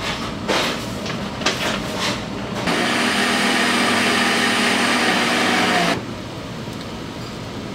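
A few sharp knocks and taps, then an electric motor runs at a steady pitch for about three seconds and stops abruptly.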